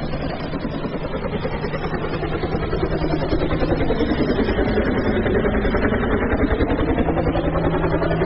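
A continuous rough, engine-like running noise that gets a little louder about three seconds in, with a slowly sweeping tone colour.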